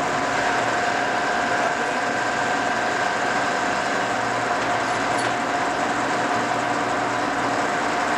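Cincinnati No. 5 vertical milling machine, with its 25 HP main motor, running under power: a steady mechanical whine with a few held pitches over a broad hum, level and unchanging throughout.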